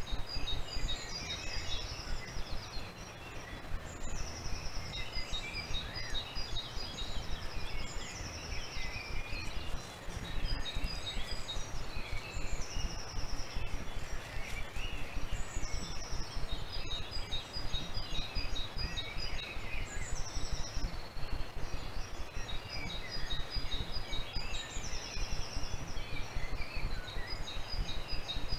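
Several birds singing in a dawn chorus, with overlapping high chirping phrases and short falling notes repeating every few seconds. A steady low rumbling noise lies underneath.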